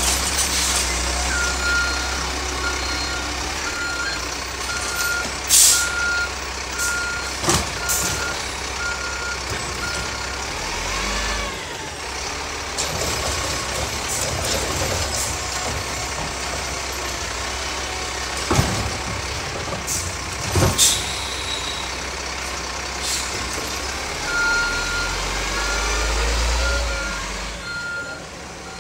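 Diesel garbage truck running and backing up, its reversing alarm beeping steadily about every two-thirds of a second, stopping about ten seconds in and starting again near the end. The engine pitch rises and falls briefly in the middle, and several sharp bangs or hisses ring out.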